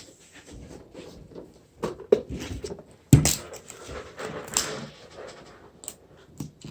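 Plastic and paper doll wrapping being handled and torn open, crinkling and crackling, with a sharp knock about three seconds in.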